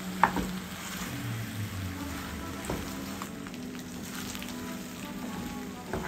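Pasta shells sizzling in a hot nonstick pan while being stirred with a wooden spoon. There is a sharp knock of the spoon against the pan near the start, and a lighter one about midway.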